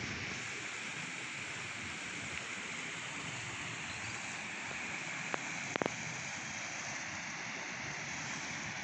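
Steady rush of a creek's flowing water, with a couple of faint clicks about two-thirds of the way through.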